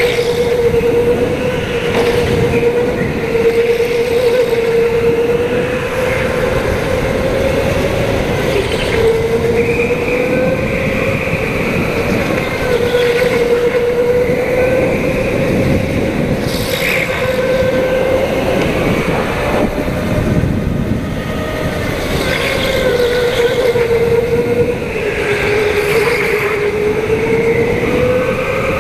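Go-kart running at speed, heard from on the kart: a steady whine that dips and rises a little through the corners, over road and chassis noise.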